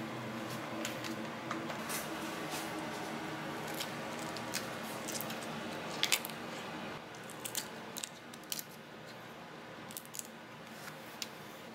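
Raw prawn shells crackling and clicking as they are peeled off by hand, with a sharp pair of cracks about six seconds in and scattered smaller clicks after. A steady low hum runs underneath.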